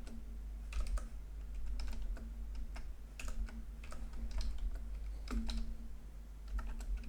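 Computer keyboard typing: irregular key clicks, typing commands into a router console.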